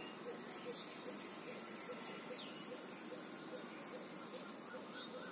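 Insects trilling in one steady, unbroken high-pitched drone, with faint lower chirps repeating about twice a second beneath it.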